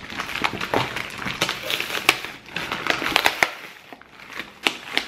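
A plastic poly mailer being torn and pulled open by hand, its plastic crinkling and crackling irregularly with a few sharper snaps. It is a struggle to open: scissors are needed.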